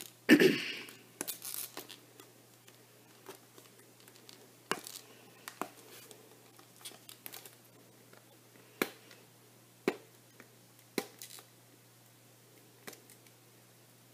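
Fingers picking and scratching at the tape seal on a clear plastic iPod Touch box. A short, louder rustle comes about half a second in, then scattered small plastic clicks and scratches.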